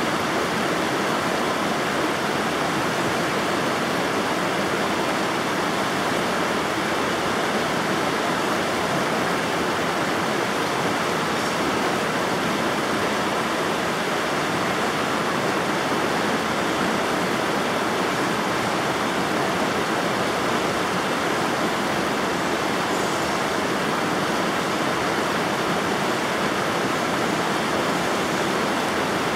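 River water flowing with a steady rushing that holds even throughout.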